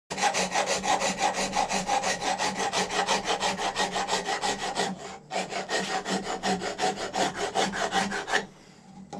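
A 4-in-1 hand rasp, coarse side, filing the rough outer surface of a raw horn in rapid back-and-forth strokes, several a second. The strokes pause briefly about five seconds in and stop near the end.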